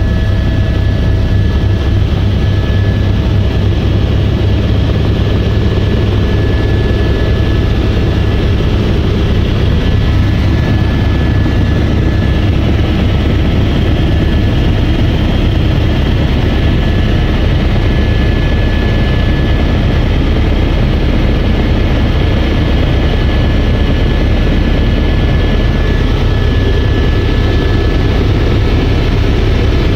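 Helicopter in flight heard from inside the cabin: a loud, steady rumble of the rotor and engine, with a thin, steady high whine over it.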